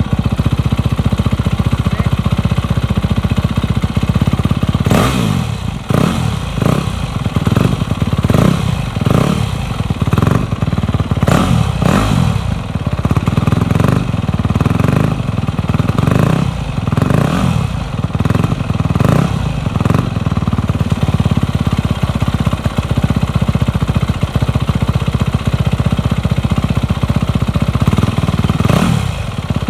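Yamaha YZ250F four-stroke single-cylinder dirt bike engine running through a Yoshimura exhaust with an FMF PowerBomb header, soon after a cold start, with the throttle blipped again and again in the middle of the stretch and once more near the end.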